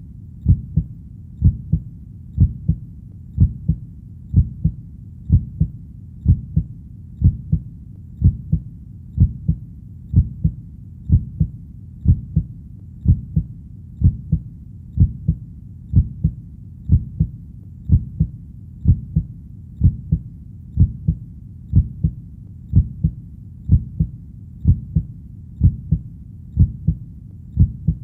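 Heartbeat sound: a steady, even rhythm of low double thumps (lub-dub), about one beat a second, over a faint low background rumble.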